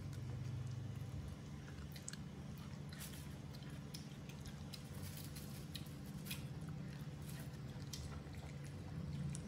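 Baby macaques chewing and gnawing on grilled chicken wings, with scattered small wet clicks and smacks over a low steady hum.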